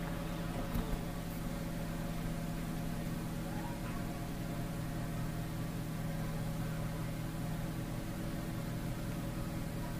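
A steady machine hum with a brief knock just under a second in.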